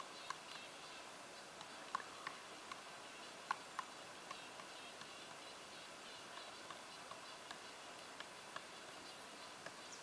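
Pileated woodpecker pecking and chiselling at a tree trunk: faint, irregular single taps and knocks, a few louder strikes about two and three and a half seconds in, not a steady drumroll.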